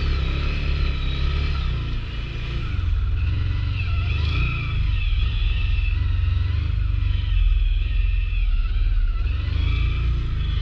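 ATV engine running hard, its pitch rising and falling as it revs.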